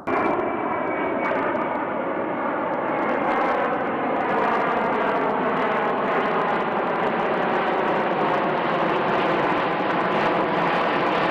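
C-17 Globemaster III transport jet flying low overhead, its four turbofan engines giving a steady, loud roar with a slowly shifting hollow tone as it passes.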